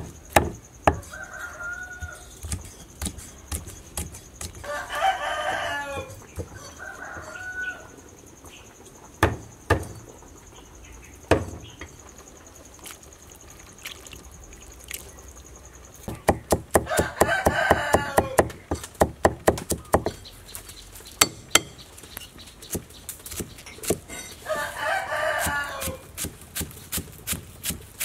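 A rooster crows three times, with a couple of shorter chicken calls, while a cleaver knocks on a wooden chopping board. The chopping strikes are the loudest sound and come in quick runs in the second half.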